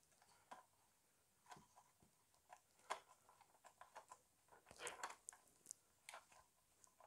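Faint, scattered clicks and scrapes of a screwdriver and small screw working on a scale model car's wheel arch, busiest about five seconds in.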